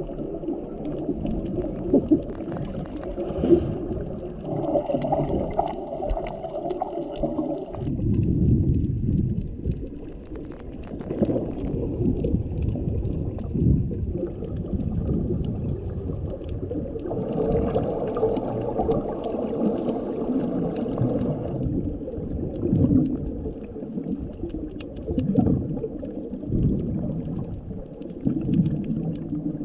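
Muffled underwater noise picked up by a submerged camera: a low, churning water rumble with gurgling, and two longer stretches of brighter bubbling.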